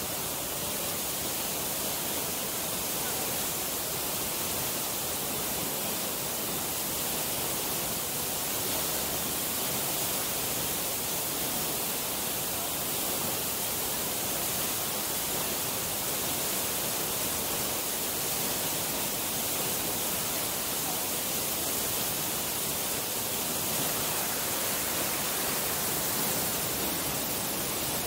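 Waterfall running, a steady even hiss of falling water carrying across the plunge pool, with no change in level.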